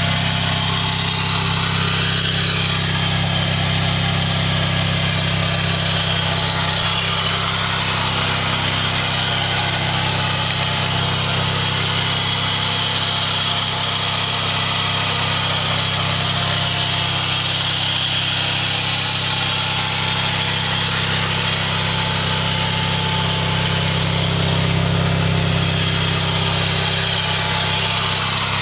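Gilson 18 hp riding mower's engine running steadily at a constant speed, without revving up or down.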